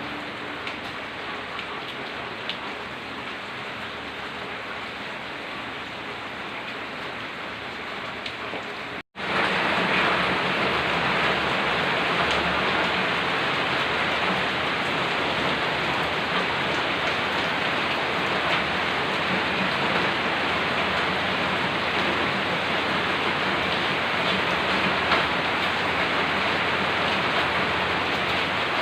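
Steady rain falling, an even hiss. It cuts out for an instant about nine seconds in and comes back louder.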